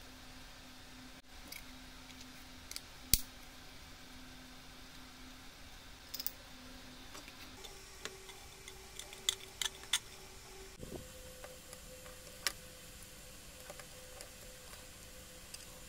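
Faint, scattered clicks and taps from handling small workshop parts: pliers working a small switch and its wires, then 3D-printed plastic housing pieces knocking together. The sharpest click comes about three seconds in, with a quick cluster of taps a few seconds later.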